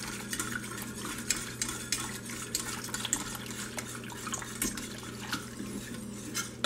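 Wire whisk stirring cream into a sauce in a stainless steel Instant Pot inner pot, the wires ticking quickly and unevenly against the pot.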